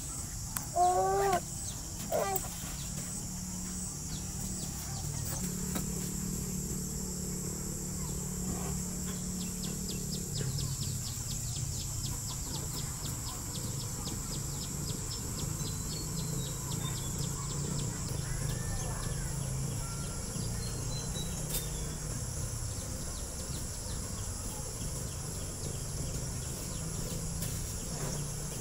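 Outdoor nature ambience: a bird calls loudly twice, about one and two seconds in, then insects keep up a steady high buzz, with a fast ticking trill for several seconds midway and a brief bird call later on.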